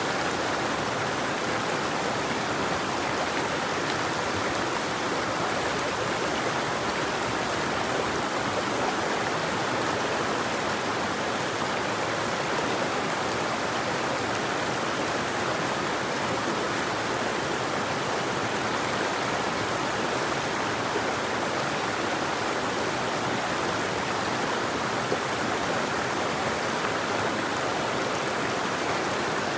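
River water flowing, a steady, even rushing with no birdsong.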